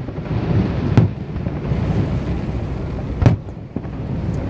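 Aerial firework shells bursting: two sharp booms, about a second in and again a little over two seconds later, over a steady low rumble.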